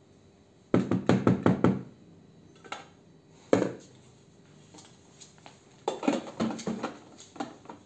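Stainless steel Thermomix TM6 mixing bowl knocked and tapped while its last bit of mixture is emptied out: a quick run of about six knocks about a second in, then a single knock. Near the end comes a clatter of knocks as the bowl is set back into the machine's base.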